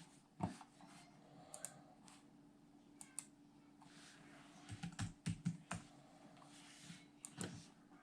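Faint scattered clicks and light taps, with a short cluster of soft knocks about five seconds in and two more near the end.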